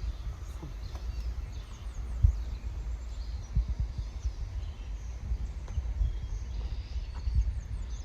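Faint chirps of songbirds in the woods over a steady low rumble, with a few soft thumps, the loudest about two seconds in.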